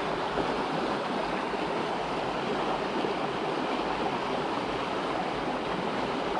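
Water of a small river rushing steadily.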